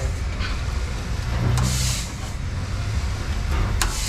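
A steady low rumble throughout, with a short rustling hiss about a second and a half in and a few sharp clicks near the end as a vehicle's electrical module connector is worked loose by hand.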